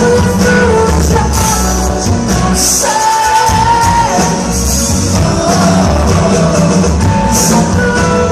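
Live rock band playing a song with a sung vocal over drums, bass and guitars. The bass drops out for a moment about three seconds in while a held note carries on above.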